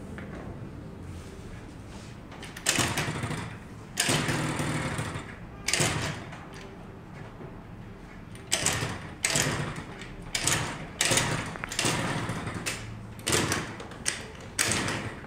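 Honda Dio AF35 scooter's small two-stroke engine running at idle and revved in about a dozen short, sharp throttle blips, starting about two and a half seconds in.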